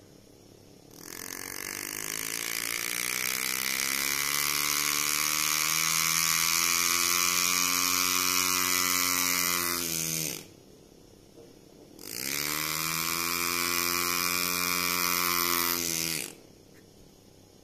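Steve Lindsay Classic pneumatic graver handpiece, run from a foot pedal, its piston hammering the graver into a brass plate: a fast, evenly pitched hammering whose pitch climbs as the pedal goes down and drops as it is let up. It runs twice, about nine seconds and then about four seconds, with a short pause between.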